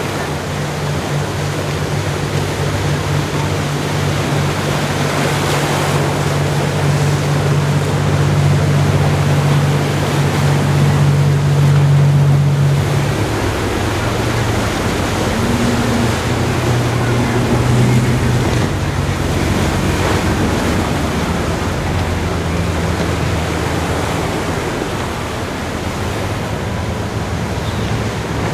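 Ocean surf breaking steadily, with wind buffeting the microphone. A low hum sits underneath and shifts in pitch about halfway through.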